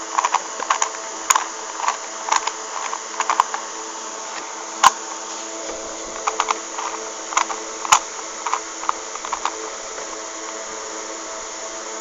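Plastic Rubik's Cube layers being twisted by hand: irregular clicking and clacking, busiest in the first few seconds with two sharper clicks later on, over a steady low hum.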